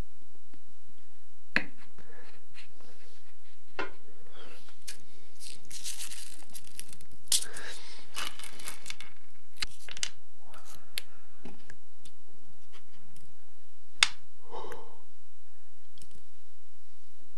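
Close-miked handling sounds of decorating a piece of chocolate by hand: scattered sharp clicks and taps as small candy-coated chocolates are picked up and pressed on, with a few seconds of crinkly, sticky noise in the middle from a squeezed tube of chocolate spread.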